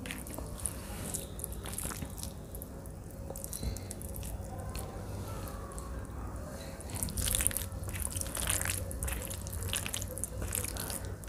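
Close-miked ASMR eating sounds: chewing and wet squelching of fingers mixing soft rice with mashed vegetable bharta. Small wet clicks and crackles come in clusters, busiest from about seven to ten seconds in.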